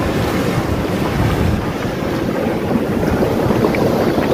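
Steady rushing, churning noise of a boiling geothermal hot-spring pool, its grey sulfurous water bubbling hard.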